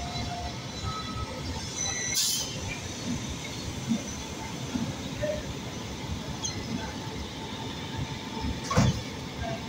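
WAP-7 electric locomotive rolling slowly along the track: a steady rumble of wheels on rail, with two sharp knocks, about two seconds in and near the end.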